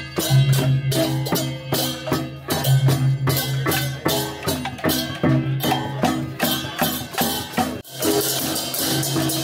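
Balinese processional gamelan (baleganjur) playing: fast clashing hand cymbals (ceng-ceng) and drum strokes over a pulsing low gong tone. The music briefly drops out about eight seconds in, then carries on.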